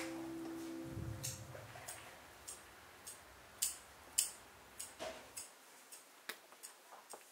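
Guitar music dies away in about the first second, leaving a string of faint, sharp clicks at irregular intervals, a dozen or so, the loudest two a little past the middle.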